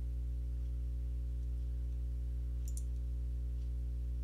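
Low, steady electrical mains hum with a ladder of overtones, picked up in the microphone's recording chain. Two quick clicks come about two and a half seconds in.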